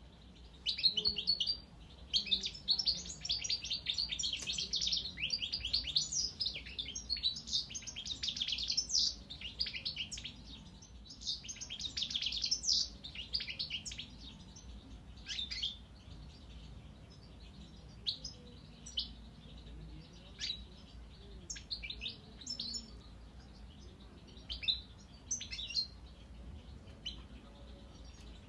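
Young European goldfinch starting to sing: a fast, dense run of twittering notes for about the first half, then scattered single chirps and short phrases.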